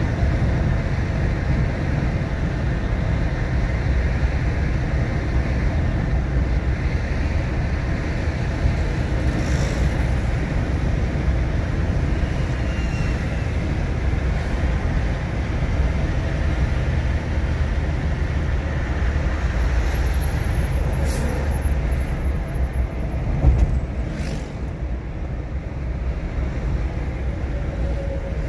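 Car driving: a steady low rumble of engine and road noise, with a single thump about 23 seconds in.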